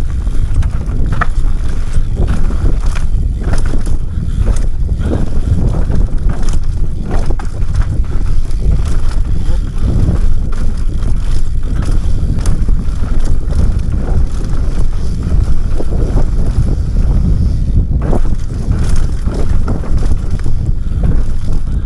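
Wind rumbling on a helmet-mounted action camera's microphone as a mountain bike is ridden fast down a dirt trail, with frequent knocks and rattles as the tyres and bike hit bumps.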